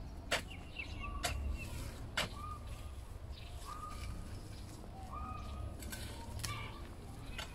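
Hand tools, a hoe and a spade, striking and digging into dry, hard, clumpy garden soil: sharp knocks, three spaced about a second apart and then a quick cluster near the end. Birds call repeatedly in the background with short, clipped calls.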